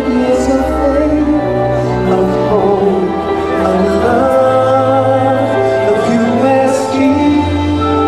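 Music with singing: slow, held notes over a steady bass.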